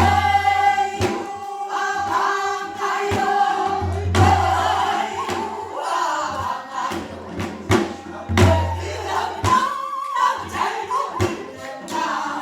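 Several voices singing a Namdo folk song (Korean southern-province folk singing) together, with a low beat about every four seconds.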